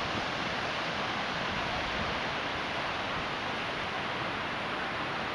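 Pacific Ocean surf breaking on a rocky beach, heard as a steady, unbroken wash of waves with a low rumble beneath.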